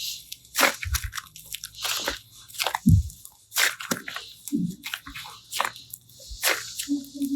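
Slime being pressed and squished by hand, giving irregular crackling pops, about one or two a second.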